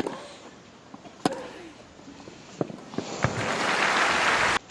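Tennis rally: sharp racket strikes on the ball about every second and a quarter. Near the end the crowd applauds the point, and the applause is cut off abruptly.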